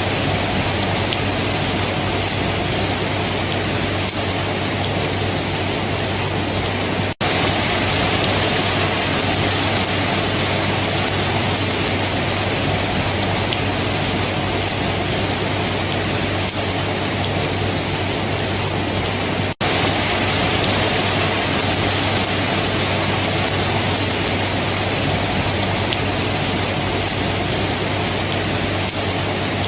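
Steady rain, a dense even hiss with no thunder, broken by two split-second dropouts about seven and twenty seconds in.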